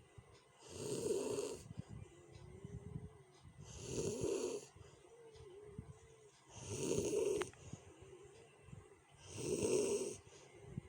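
A sleeping person snoring, rough and loud: four rasping snores about three seconds apart, with a faint wavering whistle on the breaths between them.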